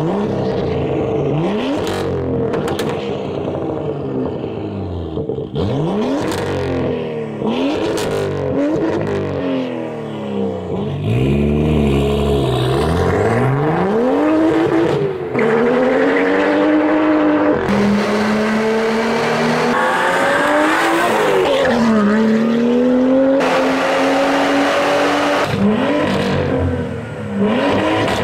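BMW F87 M2's turbocharged inline-six through a GTHAUS Super GT turbo-back exhaust: a string of quick free revs, the pitch shooting up and falling back, with a few sharp cracks between them. It then accelerates hard, the pitch climbing steadily and dropping off sharply several times.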